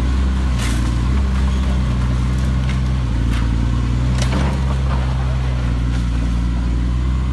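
Caterpillar excavator's diesel engine running steadily, with a few sharp clicks.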